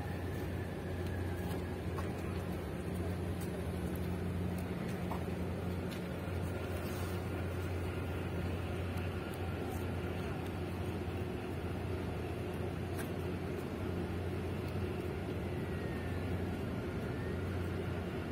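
Steady low engine drone from a large container ship and its assisting tugboats passing close by, a deep even hum with no breaks.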